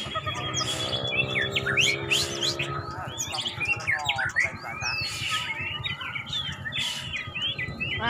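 White-rumped shamas (murai batu) singing from contest cages: several birds' fast, varied whistles, chirps and gliding notes overlapping without a break. A steady low hum runs underneath for the first three seconds.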